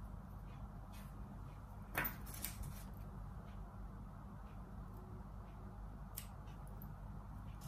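Faint handling of a cloth-wrapped bangle being pressed and shaped by hand, with a few light clicks, the sharpest about two seconds in, over a low steady hum.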